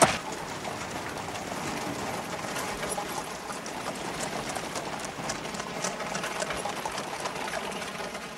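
Period street ambience: a steady hubbub with scattered light clatter of horse hooves on cobblestones, and one sharp knock right at the start.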